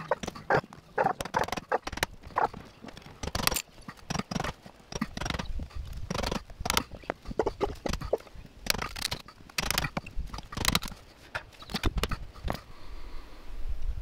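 A claw hammer striking the handle of a screwdriver held against wooden deck framing, in a run of irregular sharp knocks, a few a second, stopping about a second before the end.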